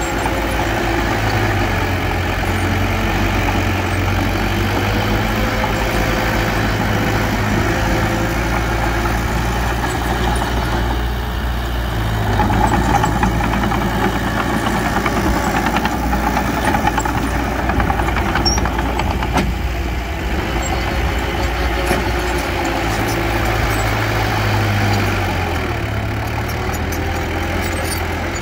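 Diesel engine of a small bulldozer running steadily as it works, getting slightly louder about twelve seconds in.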